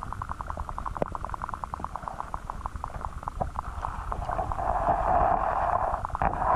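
Underwater sound picked up by a submerged action camera: a low rumble of moving water with rapid, regular ticking. About four seconds in it swells into a louder rushing hiss of water.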